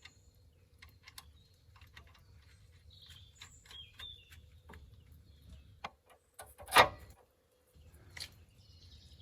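Scattered light metallic clicks and knocks of tools and suspension parts being handled, with one loud clank about seven seconds in and a smaller one about a second later. Birds chirp in the background.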